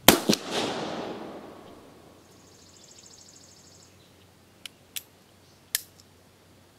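Uberti Walker .44 black-powder cap-and-ball revolver firing one shot: a sharp report with a quick echo a fraction of a second later and a rolling tail that dies away over about two seconds. A few seconds later come three short metallic clicks as the revolver's action is worked.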